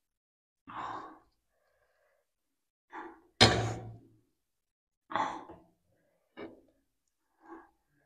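Close-miked eating sounds: short breaths and mouth noises while eating very spicy noodles, about six bursts a second or so apart. A louder sudden thump comes about three and a half seconds in.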